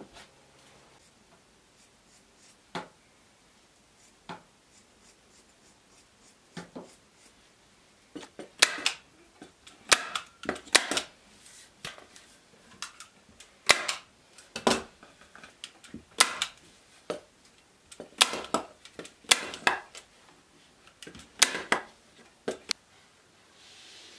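Sharp, irregular taps of a small hammer on wood, singly or a few at a time, starting about eight seconds in: tacks being driven to fasten fabric packing onto the pine piston head of a wooden box bellows.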